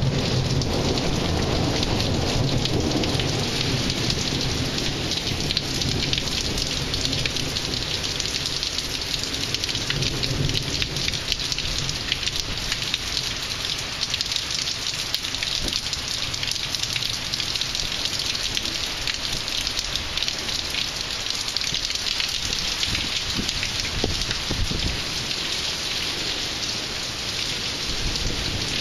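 Heavy rain pouring down steadily, with low thunder rumbling near the start and again about ten seconds in.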